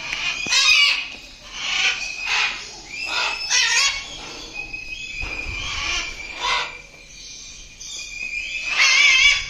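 Captive birds in an aviary calling loudly, about seven calls at irregular intervals, over a steady high thin tone.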